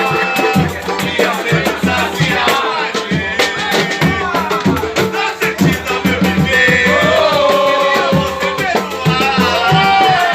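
Loud music with a voice singing over a steady beat of drums and shaker percussion.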